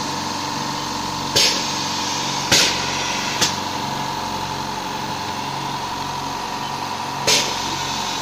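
Pneumatic piston paste filler with short hisses of compressed air from its air cylinder and valves, four times, over a steady mechanical hum.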